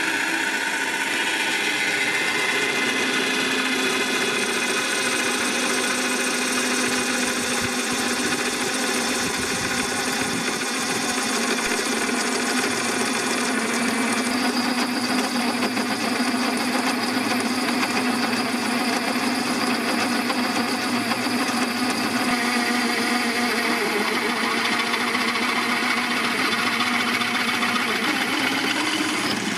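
Electric motor of a Parkside PTBMOD 710 B2 bench pillar drill running steadily under load as a 12 mm bit cuts into 4 mm steel plate with no pilot hole. The motor's steady tones shift a little about halfway through.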